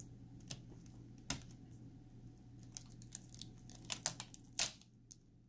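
Scattered small clicks and scrapes of fingers working the laptop LCD's ribbon-cable connector and its clear retaining tape, with a cluster of louder clicks and a short rasp about four seconds in.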